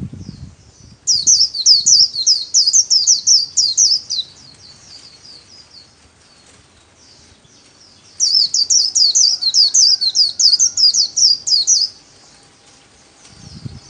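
White-eye (chim vành khuyên) singing its rapid 'líu' song: two loud runs of quick, high sweeping notes about three seconds each, one starting about a second in and one about eight seconds in, with softer chirps between them.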